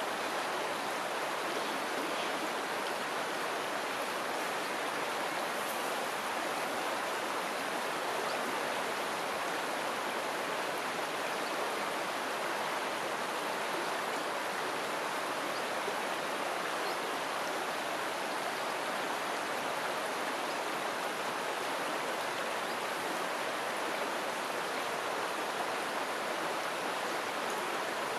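Flowing river water with a steady, even rush, unchanging throughout.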